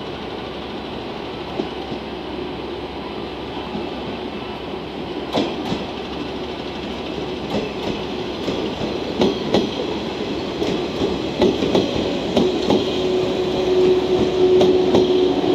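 JNR 115 series three-car electric multiple unit rolling slowly past, its wheels clicking irregularly over rail joints and points from about five seconds in. A steady hum grows louder towards the end as the cars come alongside.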